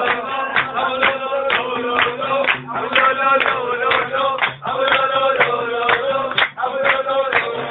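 A man chanting over music, his voice held on long steady notes, with a regular beat of sharp strikes about two to three times a second.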